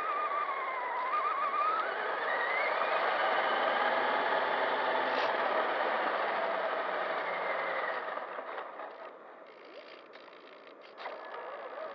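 Electric RC truck's motor and gears whining as it drives over sand, the whine climbing in pitch as it speeds up, then falling away and quietening about eight seconds in, before rising again as it accelerates near the end.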